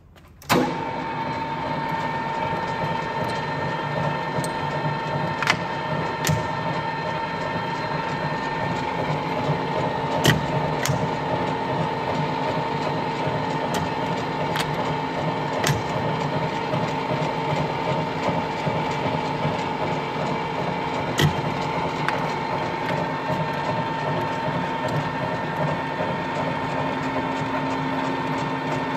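Colchester Bantam metal lathe switched on about half a second in and then running steadily with a constant whine from its gearing. A few sharp clicks come through the running sound as the apron levers are worked.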